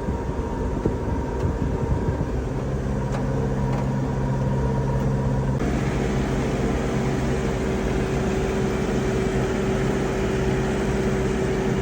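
Tractor engine running steadily while pulling a hay baler in the field. Its tone changes about two and a half seconds in and again about five and a half seconds in, as the engine note shifts.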